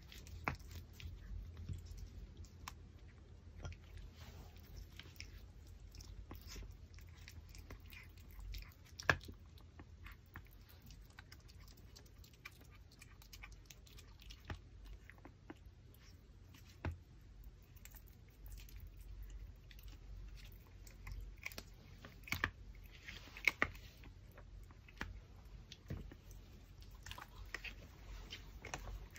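Pomeranian chewing and gnawing a raw pork backbone: steady chewing broken by scattered crunches and sharp cracks of bone, the loudest about nine seconds in and two more a little past twenty-two seconds.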